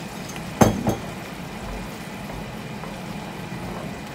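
Pan of mushroom sauce simmering with a steady low bubbling hiss. A single clunk sounds about half a second in.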